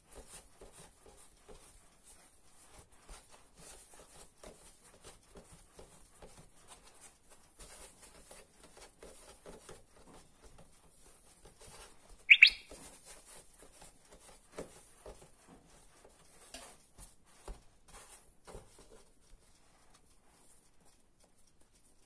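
Faint rustling and patting of hands rolling yeast-dough balls on a floured wooden board. About twelve seconds in there is a single short, high-pitched chirp, the loudest sound of the stretch.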